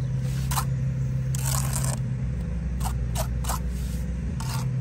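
Bricklayer's steel trowel scraping wet mortar on clay bricks: a handful of short scrapes, with a longer one about a second and a half in. Under it runs a steady low engine hum.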